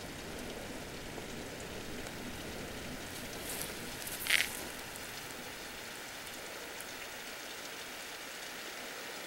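A steady, even hiss, with one short sharp click a little over four seconds in.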